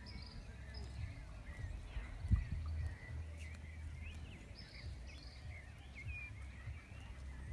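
Outdoor background of birds chirping, many short high calls scattered throughout, over a low rumble of wind on the microphone, with one brief thump about two seconds in.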